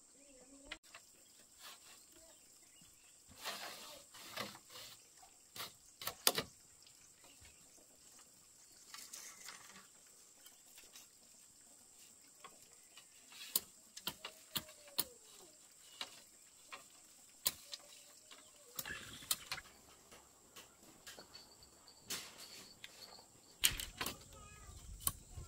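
Irregular knocks and clicks, a few of them sharp, with quieter stretches between.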